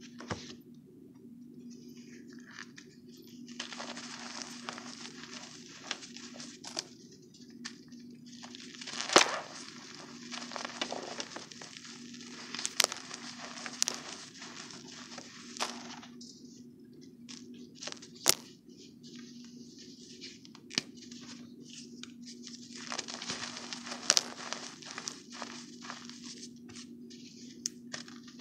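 A powder-dusted BSN block crunching and crumbling as hands squeeze and break it in a pile of baby powder and cornstarch. The sound comes in rough bursts of crunching, with a few sharp cracks, over a faint steady hum.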